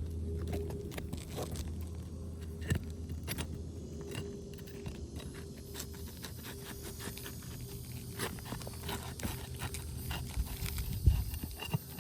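Scattered scrapes and light knocks from work on a roof shingle, with a sharper knock near the end, over a steady low hum.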